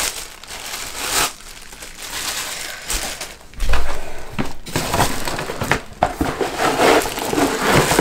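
Plastic packaging crinkling and rustling as a hair dryer and its diffuser are pulled from a cardboard box. About three and a half seconds in comes a louder thump, the plastic diffuser head falling to the floor.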